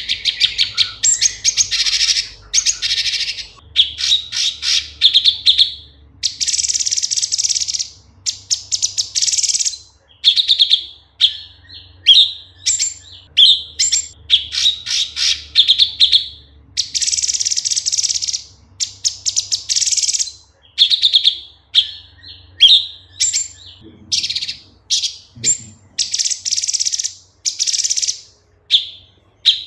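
Cucak cungkok leafbird singing: a continuous run of fast, scratchy chattering phrases alternating with short clear whistled notes and quick downward slurs, with brief pauses between phrases.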